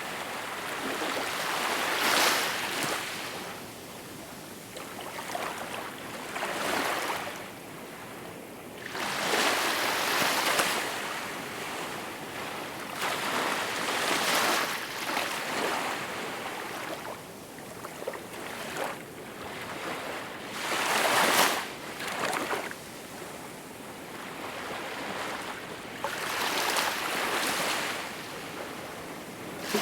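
Small waves breaking and washing on a shore, each one a soft rushing swell that rises and falls every three to five seconds over a steady hiss.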